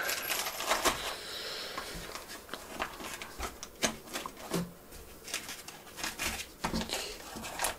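Scattered light clicks and taps of 3D printer kit parts (acrylic plates, a bag of rollers) being handled and set down in a foam-lined box.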